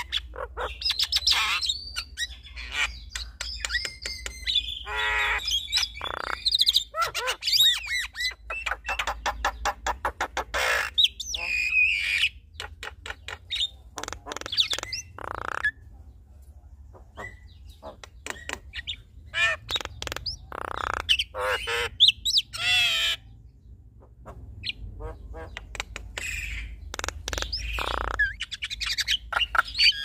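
A pair of Javan mynas, male and female, calling back and forth in duet: a rapid, varied run of whistles, chattering, harsh squawks and clicking notes, with a short lull about three-quarters of the way through.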